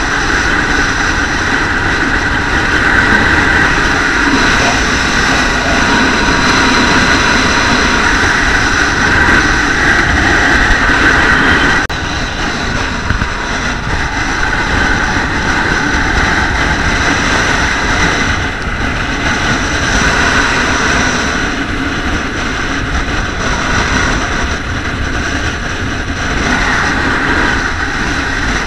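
Strong wind buffeting the microphone of a body-worn action camera: a loud, steady rushing that eases a little about twelve seconds in.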